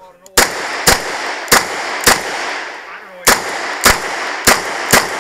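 Eight shots from a Smith & Wesson 929 9mm revolver, fired about half a second apart: four, a pause of about a second, then four more.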